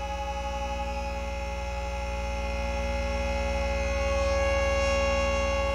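Sustained electronic drone on the soundtrack: several steady tones held together over a low, rapidly pulsing hum, swelling slightly about four seconds in.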